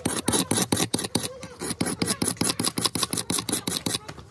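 Rapid, even back-and-forth rubbing strokes by hand on a hard surface, about seven a second, pausing briefly just before the end.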